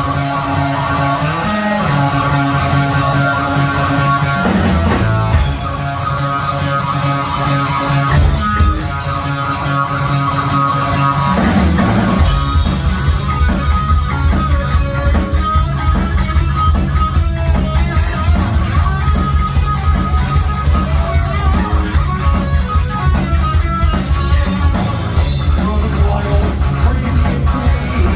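Heavy metal band playing live: distorted electric guitar, bass guitar and drum kit. About twelve seconds in, the drums settle into a fast, steady beat under the guitar riff.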